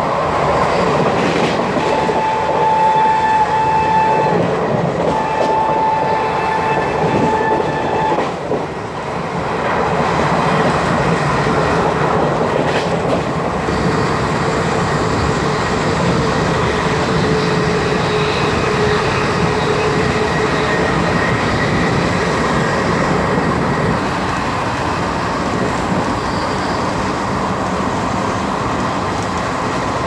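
ICF passenger coach running at about 128 km/h, heard from its open doorway: steady rushing wind and rail noise, with the wheels clattering over the track. The locomotive's horn sounds in two long blasts in the first eight seconds or so.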